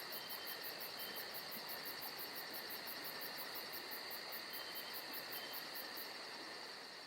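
Chorus of insects such as crickets: a steady high trill with a fast, evenly pulsing chirp above it, about five pulses a second, over a soft even hiss. The pulsing chirp stops about six seconds in, and a few faint short peeps sound in between.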